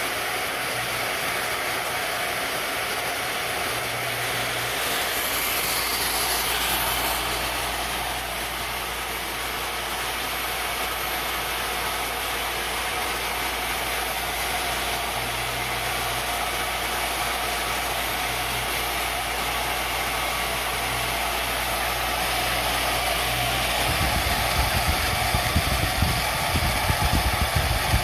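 CNC-converted X2D mini milling machine running steadily, its spindle motor driving an end mill through a wooden board while the axis servos move the table, with a low hum that comes and goes. Near the end a rougher, louder low rumble comes in.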